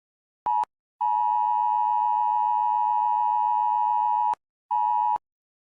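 Emergency alert attention tone: a short beep about half a second in, a long steady tone of about three seconds, then another short beep near the end.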